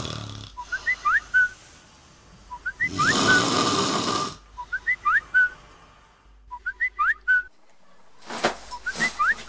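A person snoring twice, with long noisy breaths. Between them a mobile phone rings: a short phrase of rising whistled notes repeats about every two seconds.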